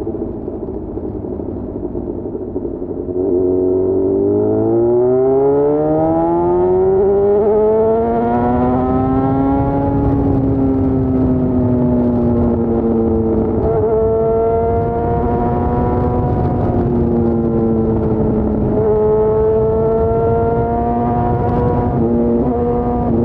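Yamaha FZ6's inline-four engine on the move: lower and quieter for about three seconds, then the throttle opens and the revs rise steadily for several seconds before holding fairly steady, with a couple of brief dips in revs.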